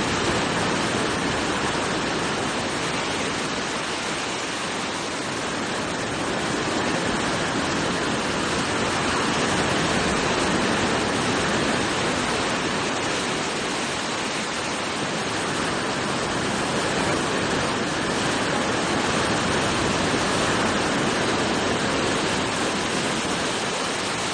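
Floodwater of the Ravi river rushing steadily, an even water noise that swells and eases slowly.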